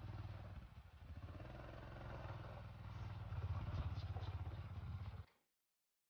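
Small motorcycle engine running steadily with a fast, even pulse, then stopping abruptly about five seconds in.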